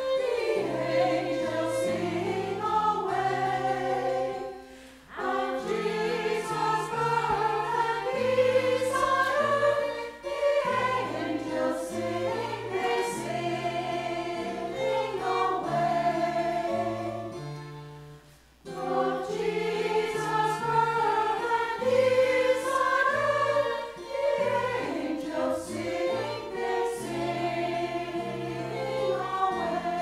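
Women's choir singing with violin and piano accompaniment, held low notes under the voices. The music dips briefly between phrases about five seconds in and again about eighteen seconds in.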